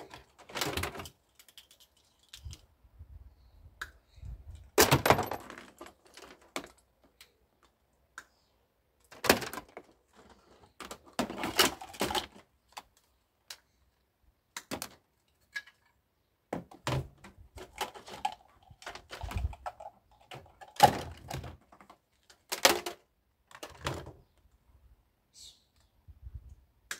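Scrap electrical appliances being handled and their flexes cut with hand cutters: irregular clicks, snips and rattling plastic clatter, with several louder clatters and a few dull thumps.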